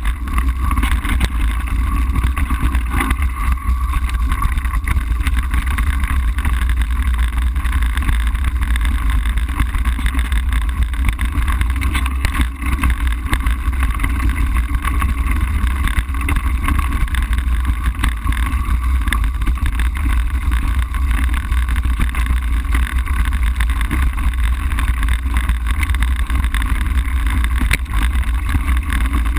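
Mountain bike rolling fast down a gravel road, heard from a camera mounted on the bike: a loud, steady rumble of wind on the microphone mixed with the grainy noise of tyres on loose gravel.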